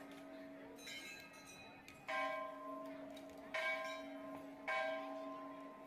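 Temple bell struck about three times, each stroke ringing on and overlapping the next.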